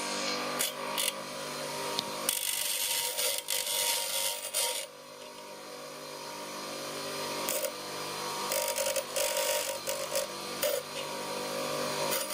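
Ferm FSM-150 bench grinder running with a steady motor hum while steel is pressed against its coarse grinding wheel, throwing sparks. There is a harsh grinding rasp from about two to five seconds in, then shorter touches from about seven and a half to eleven seconds.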